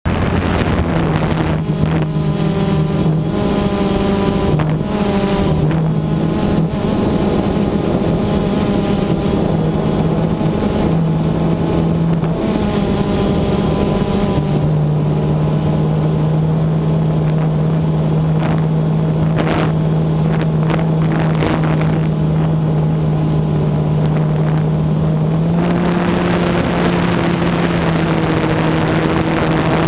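DJI Phantom quadcopter's electric motors and propellers humming steadily at close range, heard from the camera mounted on the drone, with air rushing over the microphone. The hum steadies to one even tone about halfway through and steps up slightly in pitch near the end, with more air rush.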